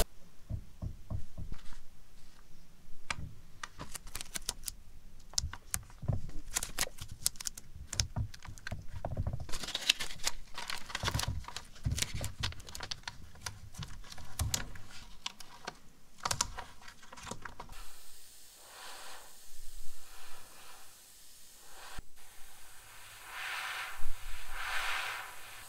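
Masking tape and kraft paper being pressed, torn and smoothed onto a small model car body: a busy run of crinkles, taps and tape rasps. In the last several seconds an airbrush sprays paint in a few short hissing bursts.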